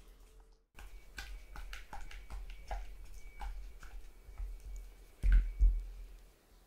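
Silicone spatula mixing cream cheese and coarse sugar in a glass bowl: a run of soft wet squishing and scraping strokes. There are two dull thumps a little past five seconds in.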